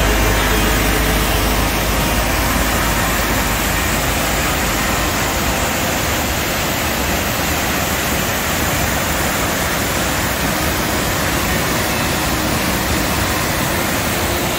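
Steady, loud rush of whitewater: the lower falls of Reed Creek, a mountain stream, cascading over boulders.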